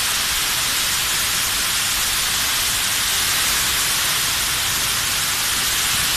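Fire sprinkler head discharging water during a flow test, a steady, even hiss of spray.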